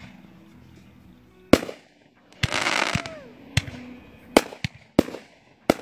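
Consumer aerial fireworks going off: a sharp bang about a second and a half in, a loud hissing rush, then a quick string of five more sharp bangs.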